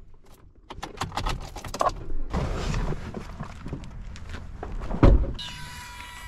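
Clicks and rustling from handling gear, a single heavy thump about five seconds in, and a brief high squeak with sliding pitch near the end.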